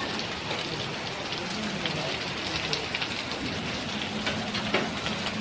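Heavy rain with hail falling on a wet street: a dense, steady hiss of rain with many scattered sharp ticks of hailstones striking the ground.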